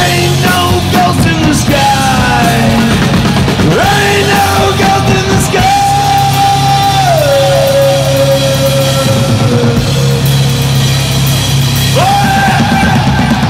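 Rock band playing live: drum kit and loud distorted electric guitar, with long held notes that slide down in pitch several times, and a yelled vocal coming in near the end.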